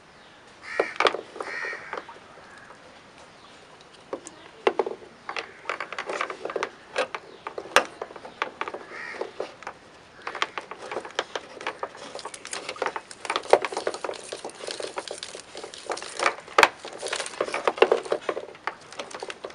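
Rustling, scraping and clicking of a bundle of electrical wires being handled and fed through a hole in a car's inner body panel, busier and louder in the second half. A bird calls twice about a second in.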